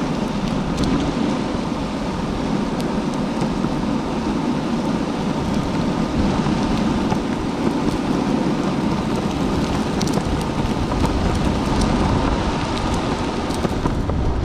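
Longboard wheels rolling steadily over a paved path, a continuous low rumble with scattered faint ticks.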